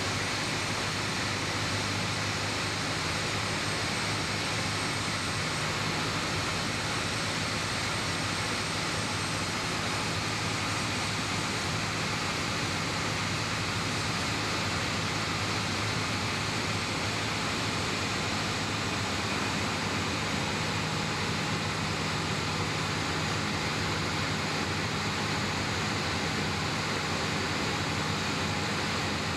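Cessna light aircraft's piston engine and propeller droning steadily, heard from inside the cabin over a constant hiss of airflow, as the plane descends toward the runway.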